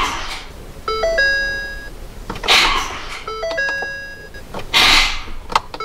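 Ford Super Duty dashboard warning chimes, a stepped series of electronic tones, sounding as the ignition is switched on, with three short rushes of noise between them. The truck, whose batteries are weak, does not start.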